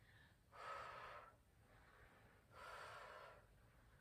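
A woman breathing hard from exercise: two faint, audible breaths about two seconds apart.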